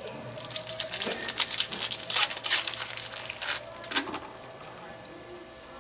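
Crinkling and rustling of a pack of trading cards being torn open and handled, lasting about three seconds, then a single sharp tap about four seconds in.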